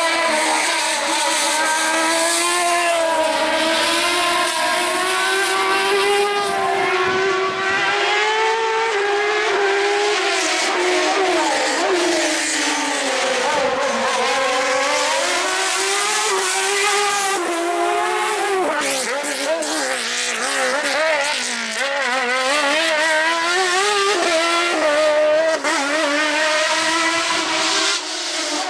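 Suzuki motorcycle engine of a Fiat 126 slalom special, revving hard. Its pitch climbs and drops again and again as the car is driven through a cone slalom, with short breaks at the gear changes.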